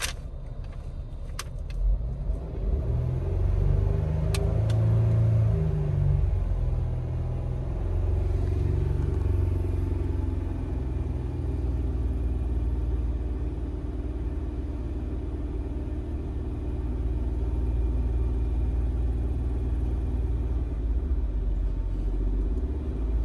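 2008 Jeep Wrangler's 3.8-litre V6 engine, heard from inside the cabin, brought up from idle about two seconds in and held steady at a fast idle of about 2000 rpm.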